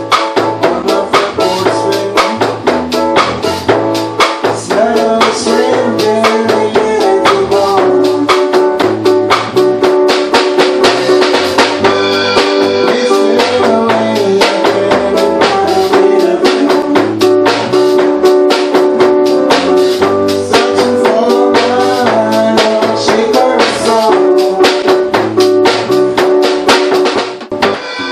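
Live band playing a song on drum kit, keyboard and electric bass guitar, with steady drum strokes over held keyboard chords and a moving bass line.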